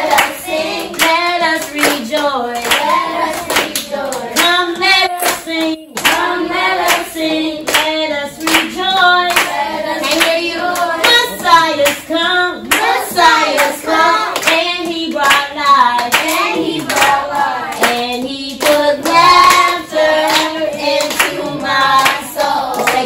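A group of children and a woman singing a praise song together, clapping their hands in a steady beat, in a small room.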